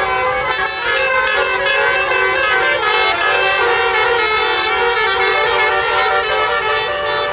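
Basuri telolet bus horn, a set of air-horn trumpets, playing a tune in loud, unbroken notes that step from pitch to pitch.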